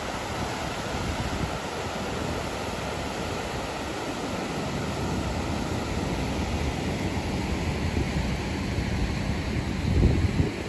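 White water rushing out of a dam's open floodgates in spring flood, a steady roar of churning river water. Near the end a brief low rumble of wind hits the microphone.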